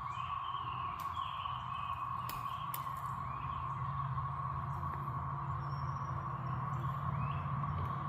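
Chorus of 13-year periodical cicadas of the Great Southern Brood: a steady, even drone at one pitch. A few short bird chirps come over it, and there is a low rumble underneath.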